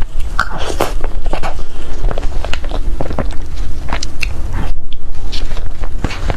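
Close-miked eating of cake: a quick run of sharp bite and chew clicks and wet mouth smacks, with a brief break about five seconds in.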